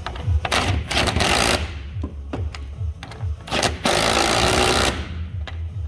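Power driver running in two short bursts, driving the fasteners of a truck door hinge, over background music with a steady low beat.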